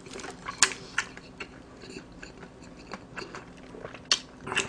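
Close-miked chewing of a mouthful of fried chicken, with irregular crisp crackles and small wet mouth clicks.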